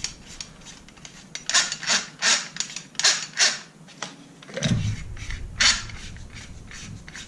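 Threaded metal barrel shroud of a Panzer AR12 Pro shotgun being unscrewed by hand in short twists, giving a series of brief metal-on-metal scrapes against its self-locking detents. A low thump of the gun being handled comes about four and a half seconds in.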